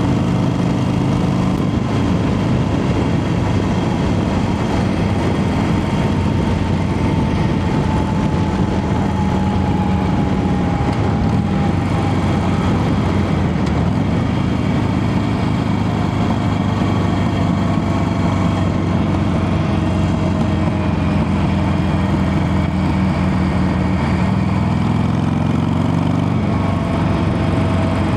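Harley-Davidson Sportster 883's air-cooled V-twin running steadily while riding, its pitch climbing toward the end as the bike picks up speed.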